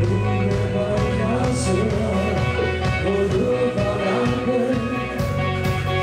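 Live rock band playing loudly: distorted electric guitars and bass held over a drum kit with cymbal hits, and a singer's voice.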